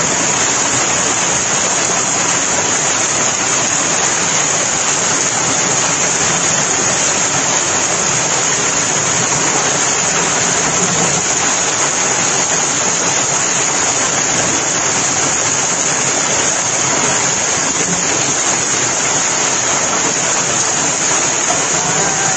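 Heavy thunderstorm downpour pouring down steadily, an unbroken dense hiss with no letup.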